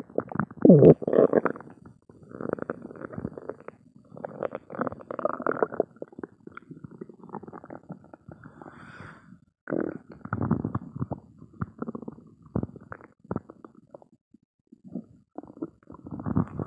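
Human stomach growling and gurgling, a gassy, empty belly: a string of irregular rumbles, the loudest about a second in, with a short lull near the end.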